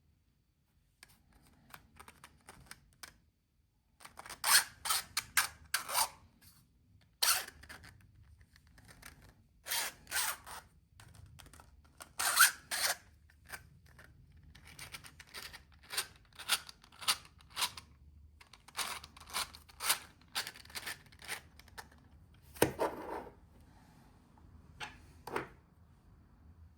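Hard 3D-printed plastic parts being handled and fitted together by hand: irregular clusters of clicks, snaps and scrapes, with a louder knock about 23 seconds in.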